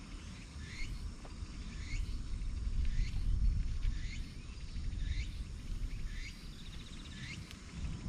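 Low wind rumble on the microphone, with a short rising chirp repeated about once a second and a faint buzzing trill now and then.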